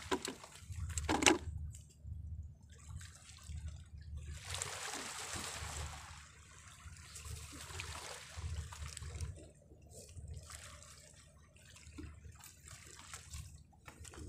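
Small sea waves lapping and washing against the shore rocks, swelling and fading, with a sharp knock about a second in.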